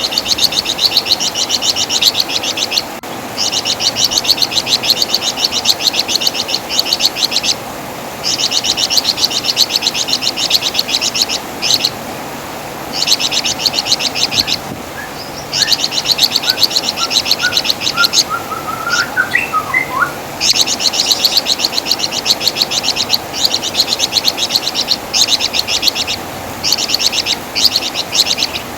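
A flamboyan (wergan Jawa) songbird singing its shrill, rapid chattering trill in phrases a second or two long, broken by short pauses. Faint rising whistled notes from another bird come in about halfway through.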